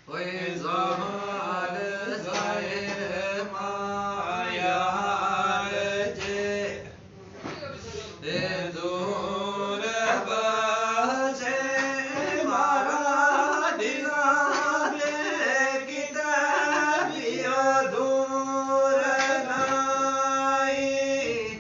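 A voice singing a slow, chant-like melody in long held notes, with a steady lower note sounding underneath. It breaks off briefly about seven seconds in, resumes, and cuts off suddenly at the end.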